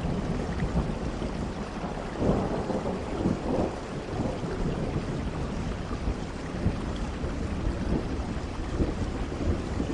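Steady rain with rolling thunder, the rumble swelling a couple of seconds in.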